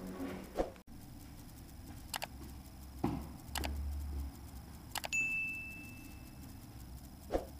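Scattered clicks and knocks, then a sharp click followed by a steady high electronic beep lasting about a second and a half.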